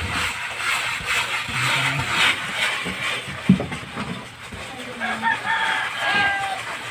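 A rooster crows once, a long call about five seconds in. Before it there is a stretch of scraping noise and a single sharp knock from hand masonry work.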